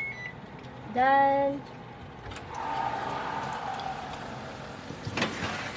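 Convection oven timer's last beep, then, as the oven is opened, a rush of steady noise from the hot oven that fades away over about two and a half seconds. A few sharp clicks and knocks follow near the end.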